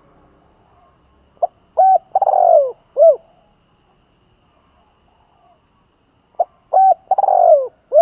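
Spotted dove cooing: two phrases about five seconds apart. Each phrase is two short coos, a longer coo that falls in pitch, and a short closing coo.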